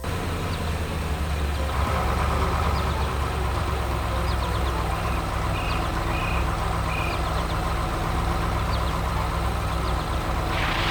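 Heavy vehicle engine running steadily at idle, a low continuous rumble, with a noise swell rising near the end.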